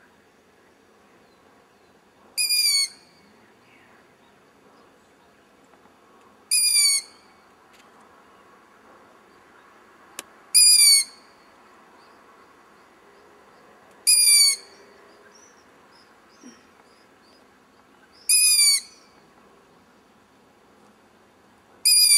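Owl chick screaming from a tree: short, high-pitched, squeaky calls of about half a second each, repeated about every four seconds, six times.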